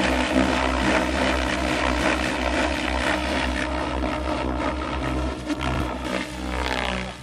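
Radio-controlled helicopter flying aerobatics overhead: the rotor blades whoosh over a steady motor hum, fading at the very end.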